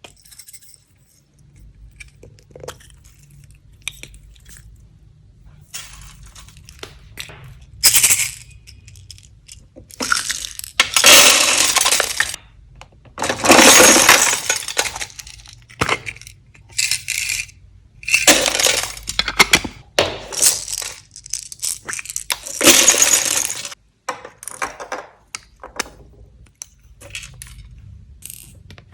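Slime-mixing handling sounds: clinks and several bursts of crackling, rustling noise a second or two long, as containers and add-ins are tipped into a bowl and worked.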